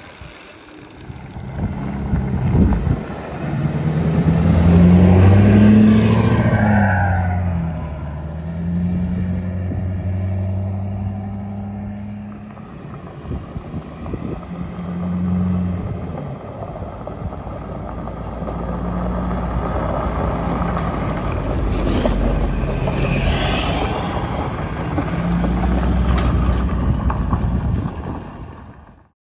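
Pickup truck towing a loaded flatbed trailer, its engine running under load with the engine note stepping up and down several times.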